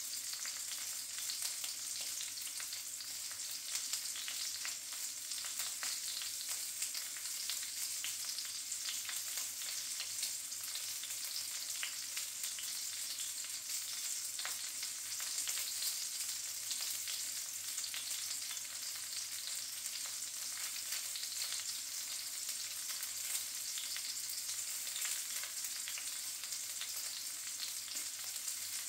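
Link sausages sizzling steadily in a frying pan, with frequent small crackles and pops of spitting fat.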